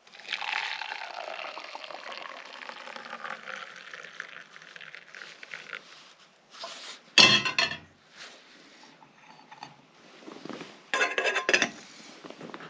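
Hot coffee poured into a cup, a steady pour of about five seconds, followed by clinks and knocks of the cup and its container. The loudest knock comes about seven seconds in, with a short rattling run near the end.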